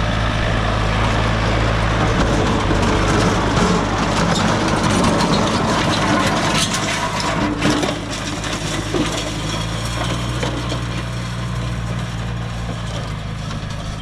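Tractor running steadily while pulling a pre-seeder across the ground, with crunching and crackling from the implement working the soil. The crunching is loudest in the first half, then eases as the tractor moves on.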